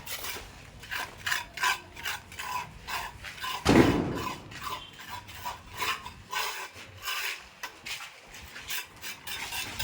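Repeated short gritty scraping or rubbing strokes, with one louder, deeper thump a little under four seconds in.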